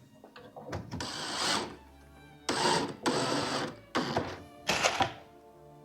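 Cordless drill with a square bit driving pocket screws into a plywood cabinet carcass, in several short bursts, the longest about halfway through. Background music plays underneath.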